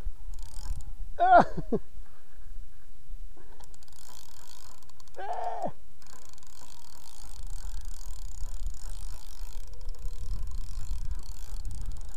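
Spinning reel being cranked against a hooked carp, its gears whirring and ticking, over a low rumble. Two short falling cries stand out, about a second in and again about five seconds in.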